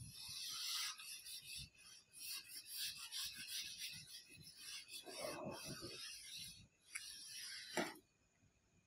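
Whiteboard eraser scrubbing across a whiteboard in quick back-and-forth strokes, faint. There is one short knock near the end.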